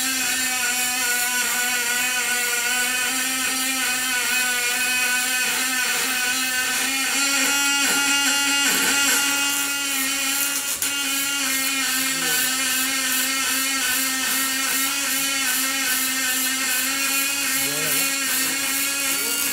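Robot-guided MIG welding arc running continuously on an aluminium radiator: a steady buzz with a hiss over it.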